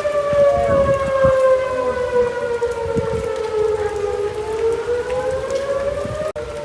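Outdoor tornado warning sirens wailing: two steady tones a little apart in pitch that slowly sink and then rise again. Low rumbles sound under them in the first few seconds, and the sound drops out for an instant near the end.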